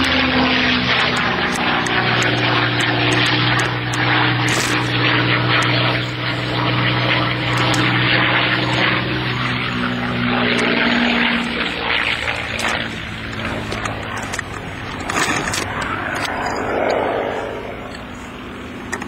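A World War Two-era propeller warbird's piston engine drones overhead. Its pitch drops at the start as the plane passes, holds steady, then fades away over the last several seconds.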